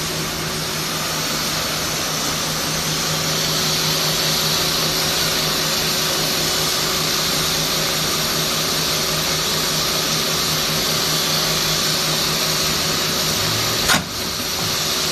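Steady running noise of flexible duct production machinery, a constant hiss over a low steady hum. A single sharp click near the end.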